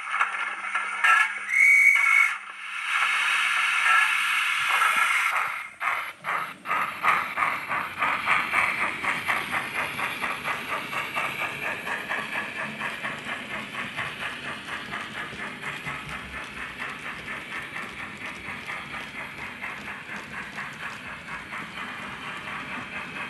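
Steam-locomotive sound from the DCC sound decoder of a model GWR 45xx Prairie tank, played through the model's small speaker. A few short hisses and a brief whistle toot come first, then a steady hiss of steam. About six seconds in, exhaust chuffs start as the engine pulls away and settle into an even beat of about three a second.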